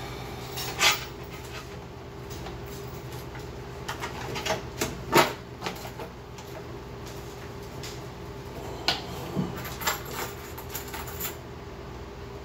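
A person eating fast food at a table: scattered sharp clicks, crinkles and mouth noises from chewing and handling the food and its paper wrappers, loudest about a second in and around five seconds in, over a steady low hum.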